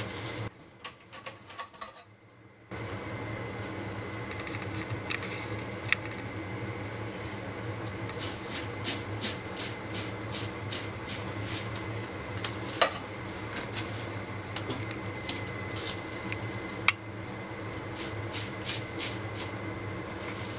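Boiled fava beans rattling in a stainless steel mesh colander as it is shaken to coat them with salt: bursts of quick light clicks, densest around the middle and again near the end, with a couple of sharper single knocks.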